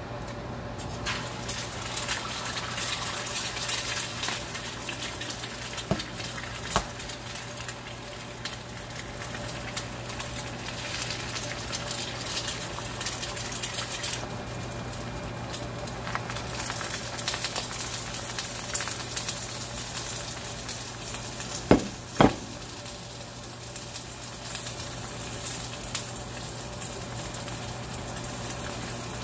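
Spinach sizzling and crackling steadily in a hot frying pan. Two sharp knocks come close together about two-thirds of the way through.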